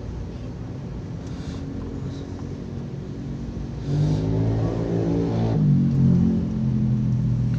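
Taxi car engine and road rumble heard from inside the cabin. About four seconds in, the engine note grows louder and shifts in pitch as the car accelerates.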